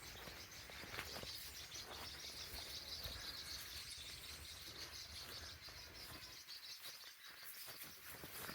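Faint outdoor ambience of insects chirring steadily in a high, even band, with a few brief soft ticks.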